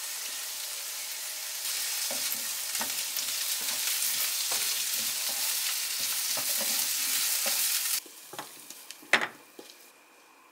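Diced potatoes sizzling in a nonstick frying pan while a metal spoon stirs them, with light knocks of the spoon against the pan. The sizzle cuts off about eight seconds in, followed by a few knocks and one sharp clack as the potatoes are tipped from the pan into a glass container.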